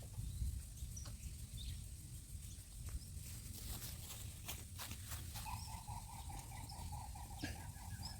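Faint outdoor ambience with a steady high hiss and scattered light clicks and snaps. From about halfway a pulsing, trilling animal call joins in and keeps going.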